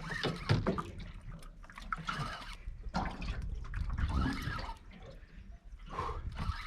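Water lapping and dripping around a small boat's hull in small, irregular splashes.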